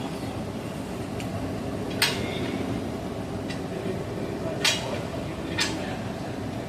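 Steady drone of ship's machinery, with three sharp metallic clinks: about two seconds in, near four and a half seconds, and a second after that.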